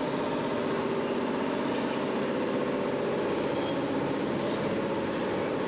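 Steady background hum and rumble with no sudden events, the kind of even mechanical drone heard in a market hall or near traffic.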